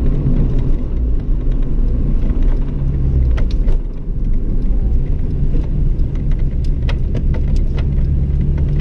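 Honda Integra Type R four-cylinder engine and road noise heard from inside the cabin while driving: a steady low drone with occasional light clicks, dipping briefly about four seconds in.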